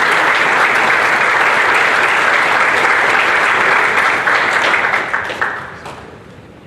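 Audience applauding steadily, then dying away about five seconds in.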